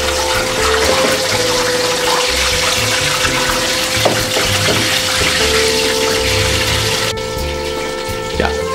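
Whole flour-dredged cabrilla deep-frying submerged in a wide pan of hot oil: a dense, steady sizzle and bubbling that stops abruptly about seven seconds in. Background music with held tones runs under it.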